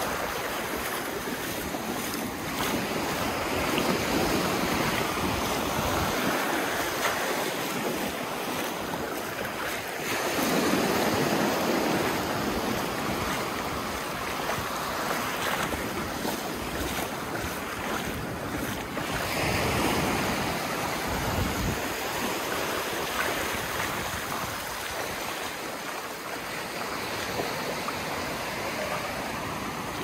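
Gulf of Mexico surf: small waves breaking and washing up over the sand, the wash swelling and ebbing every few seconds.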